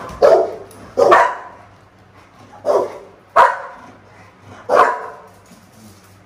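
A dog barking: five loud single barks, spaced about a second apart, the last one just before five seconds in.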